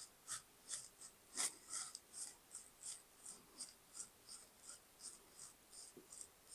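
Faint music leaking out of headphones being worn: mostly the song's high, crisp percussion comes through, as an even ticking beat of about three ticks a second.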